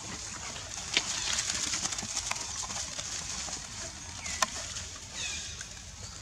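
Outdoor ambience with a steady high hiss, short high-pitched calls that fall in pitch (the clearest pair about five seconds in), and two sharp clicks, about a second in and near four and a half seconds.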